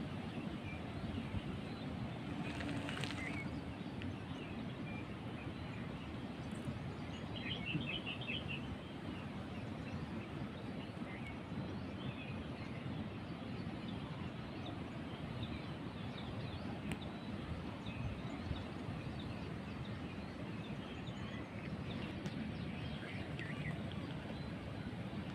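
Steady outdoor background noise with a few faint bird chirps, a short cluster of them about seven or eight seconds in.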